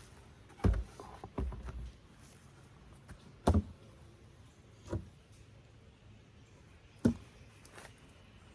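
Dull knocks and clunks of wooden beehive parts being handled and set down as a hive is opened, about five in all, with quiet between them.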